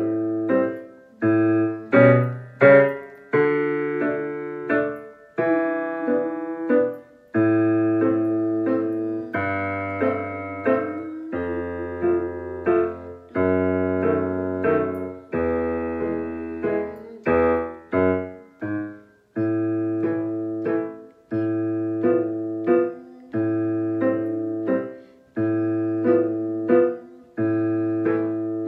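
Roland digital piano playing a waltz accompaniment: held low bass notes under repeated chords in an even three-beat rhythm, about one bar a second, with brief breaks between phrases.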